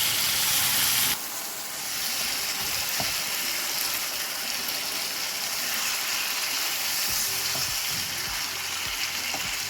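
Chicken shawarma with sliced onion, pepper and tomato sizzling in a frying pan as it is stirred, a steady hiss with occasional clicks and knocks. The sizzle is loudest for about the first second, then settles.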